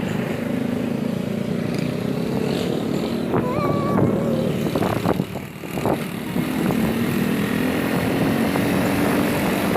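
Motorcycle engine running steadily under way on a bumpy road, with a brief high squeak about three and a half seconds in and a few knocks a little later.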